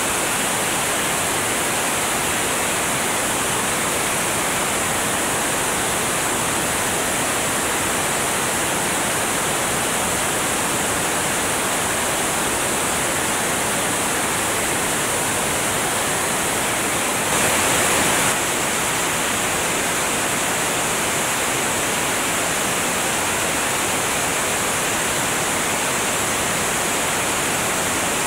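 Steady rush of airflow over a camera mounted outside on the wing of a light aircraft in flight, with a brief louder surge lasting about a second about two-thirds of the way through.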